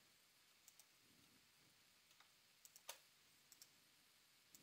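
Faint computer mouse clicks in near silence: a few short clicks, several in quick pairs, the loudest about three seconds in.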